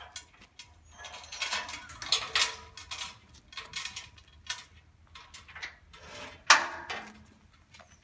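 Metal clanking and rattling from a folding mobile work platform being handled, a string of irregular knocks with one loud clank about six and a half seconds in.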